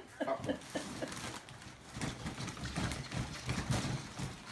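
Large cardboard box being handled and pulled open, with rustling, scraping and dull knocks against the cardboard.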